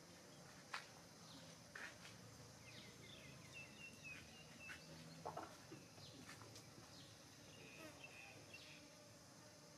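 Near silence: faint outdoor background with a few faint high bird chirps and soft ticks.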